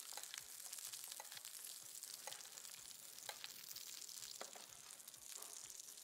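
Scallops searing in a hot pan in butter that is browning to beurre noisette: a steady high sizzle with scattered small crackles.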